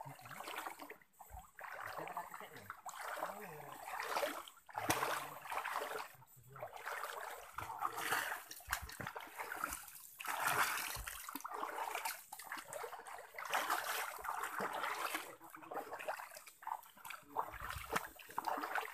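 Splashing and sloshing of legs wading through shallow stream water, in irregular surges every second or two.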